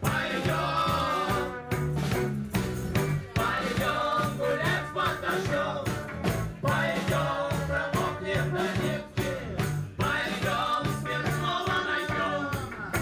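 Live band playing an instrumental passage with no vocals: accordion, electric guitar and drums.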